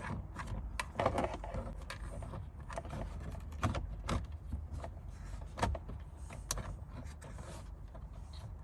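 Irregular plastic clicks and knocks from the door's power window switch panel being worked loose, its latches being unhooked, over a low steady rumble.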